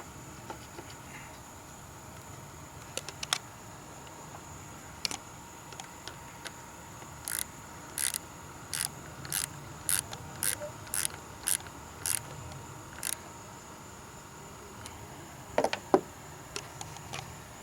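Ratchet wrench clicking in an even run of about ten strokes, roughly one and a half a second, as the negative battery cable clamp is tightened onto its terminal. A few scattered clicks come before the run, and two louder metal knocks near the end.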